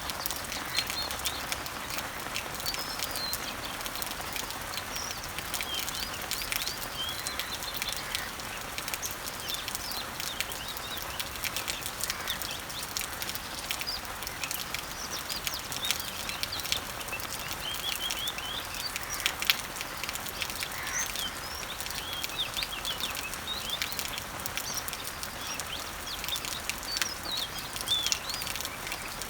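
Steady rain pattering on garden leaves and trees, a dense hiss of many small drop hits. Birds chirp in short, scattered calls over it.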